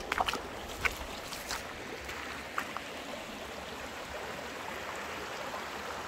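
A stream running with a steady rush of water, with a few light knocks in the first three seconds.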